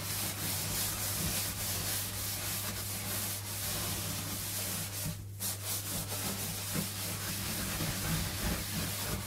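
Steady scrubbing: a pad or cloth rubbed hard back and forth over a kitchen surface, pausing briefly about five seconds in, over a steady low hum.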